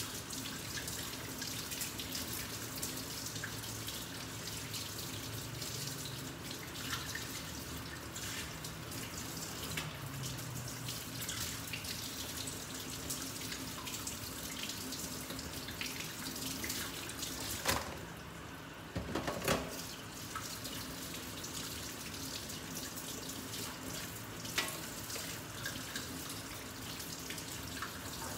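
Tap water running steadily into a stainless steel sink as live mud crabs are scrubbed under the stream, with a few sharp knocks from the handling, the loudest pair about two-thirds of the way through.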